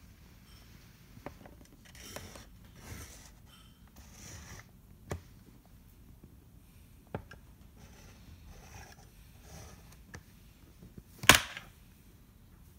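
A plastic stylus scratching softly across a toy magnetic drawing board, with handling noise, a couple of sharp clicks, and one loud knock about eleven seconds in.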